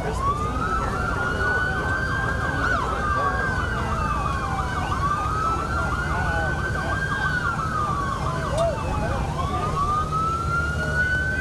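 Emergency siren in a slow wail, rising and falling about every four to five seconds, with fainter overlapping sweeps and a steady low rumble underneath.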